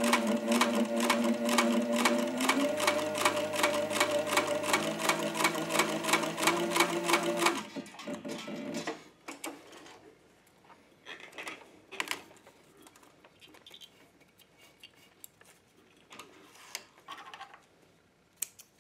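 Cobra Class 26 leather sewing machine stitching through two layers of 10-ounce leather, about five stitches a second over a steady motor hum. It stops about eight seconds in, leaving only a few faint clicks.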